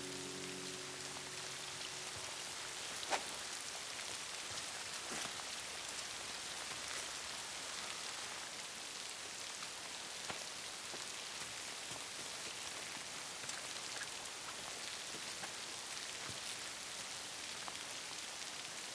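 Steady rain falling on a stone courtyard, with a few sharp clicks now and then, the loudest about three seconds in.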